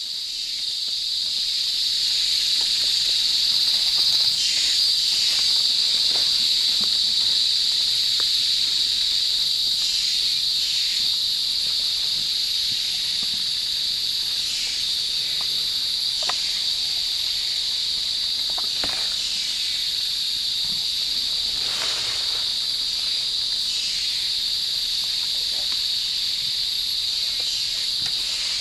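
Rainforest insects droning steadily: one loud high-pitched band with a fainter, higher one above it. Scattered faint clicks sound underneath.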